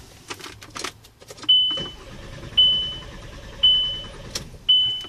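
Starter cranking the 2006 Volkswagen Beetle's engine over for about four seconds without it firing, while a short high beep repeats about once a second. The engine speed sensor gives no signal (code P0322), which the mechanic takes for a bad sensor keeping the car from starting.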